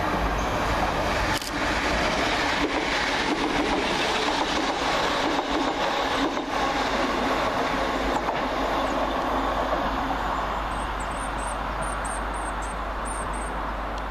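Class 319 electric multiple unit running through at speed without stopping: a steady rush of wheel and traction noise with a few sharp clicks as the wheels cross rail joints. It fades over the last few seconds as the train draws away.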